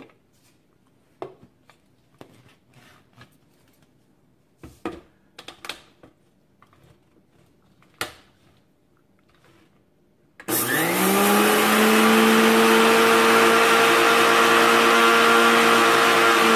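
A few clicks and knocks of the stainless steel mixer-grinder jar being handled, then about ten seconds in the electric mixer grinder starts, its whine rising quickly to a steady high speed as it grinds roasted sesame seeds.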